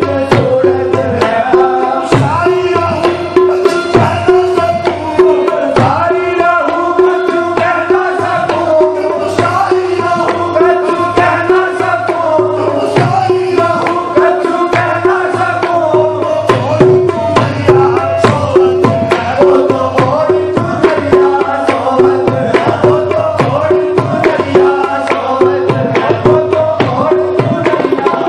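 Qawwali music: tabla keeping a steady beat under a sung melody that bends up and down.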